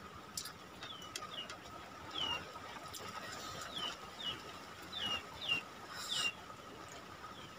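A bird calling over and over with short, high chirps that each slide downward, about ten of them at uneven intervals.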